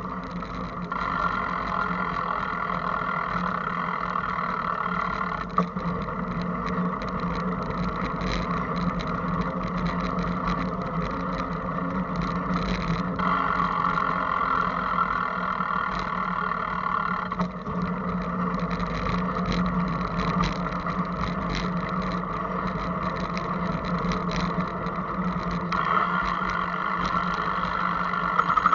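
Riding noise of a bicycle picked up by a camera mounted on the bike: a steady hum and rattle with small knocks from bumps in the path. A higher buzzing layer comes and goes a few times.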